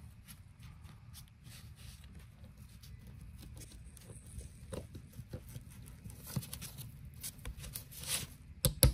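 Faint handling noises as a new ball bearing is worked by hand onto a gearbox gear shaft: light clicks and rubbing of metal parts and gloves. A quick run of sharp clicks comes near the end.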